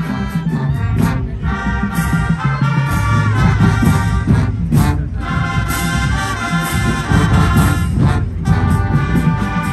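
Marching band playing: brass and sousaphones hold loud sustained chords over a heavy low end, with sharp drum and cymbal hits cutting through several times.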